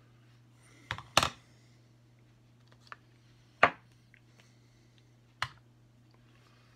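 Makeup tools and containers being handled and set down on a tabletop: about five sharp clicks and knocks, the loudest a little after one second and near the middle, over a steady low hum.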